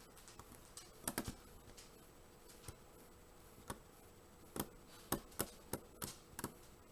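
Hook pick working the pins of a six-pin pin-tumbler lock, giving about ten sharp, irregular clicks, more of them toward the end. The pins click but none sets: too much pressure.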